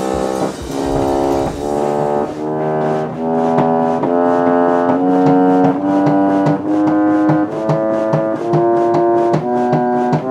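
1800s reed pump organ played, its freshly cleaned reeds sounding a steady run of sustained, reedy chords that change about every two-thirds of a second.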